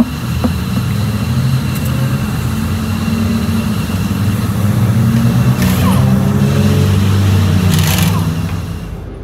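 A motor vehicle engine drones steadily and swells louder through the middle before easing near the end. Two short hissing bursts come about 6 and 8 seconds in.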